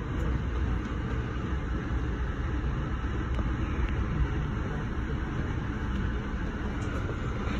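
Steady low rumble of a moving Amtrak passenger train, heard from inside the passenger car as it rolls along the track.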